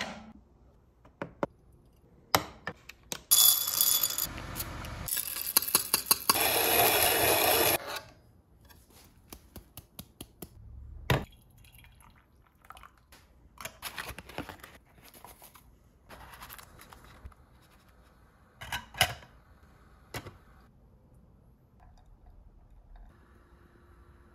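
Glass coffee-brewer parts and a glass mug being handled: scattered clinks, taps and knocks, with a steady rushing noise lasting several seconds near the start. Hot water is poured from a gooseneck kettle into the glass mug.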